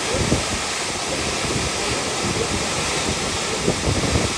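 Steady rushing of a waterfall, with wind buffeting the microphone in low gusts.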